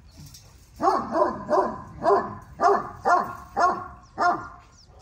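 American bully dog barking: eight sharp barks in quick succession, starting about a second in and stopping near the end.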